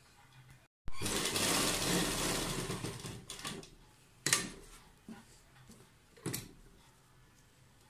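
Sewing machine running as it stitches a seam, starting about a second in and dying away about three and a half seconds in. Then two sharp clicks follow, a couple of seconds apart.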